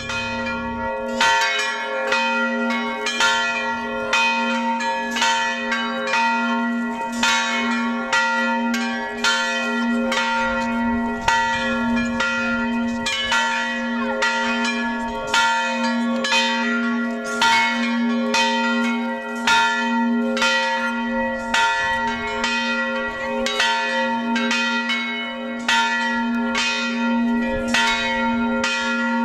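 Church bells ringing a peal: quick, even strokes of smaller bells, about two a second, over the long, pulsing hum of a larger bell.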